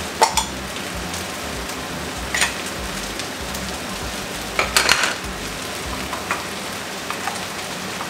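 Fried rice sizzling steadily in a hot wok, with a few short clicks and scrapes of utensils as it is stirred and spice is added, the loudest cluster about halfway through.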